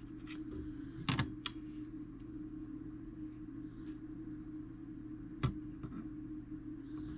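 Clock movement parts being handled during reassembly: a few sharp small clicks and taps, a close pair about a second in and a louder single click near the middle, over a steady low hum.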